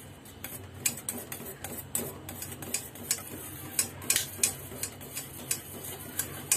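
A metal utensil clinks against the side of a stainless steel pot while stirring red colouring into hot liquid agar jelly: sharp, irregular taps, about two to three a second.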